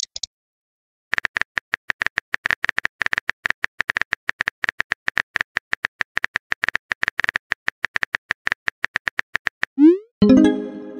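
Rapid, irregular smartphone keyboard tapping clicks, a typing sound effect, for most of the clip. Near the end they stop, and a short rising swoosh and a brief chime follow: a message-sent sound.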